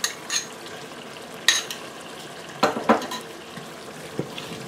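Wooden spatula scraping tomato paste into a stainless steel pot of simmering tomato stew and stirring it. A few sharp clinks and heavier knocks against the bowl and pot sound over a soft, steady sizzle of the simmering stew.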